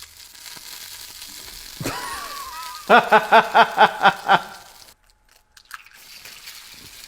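Food sizzling steadily in a frying pan pressed from aluminium foil. About three seconds in, a loud run of about eight quick pitched syllables, each rising and falling, cuts across the sizzle.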